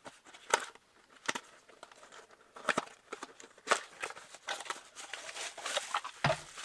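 Handling of a new fuel pump relay module and its plastic packaging: a few sharp clicks and taps, then crinkling with more clicks in the last couple of seconds.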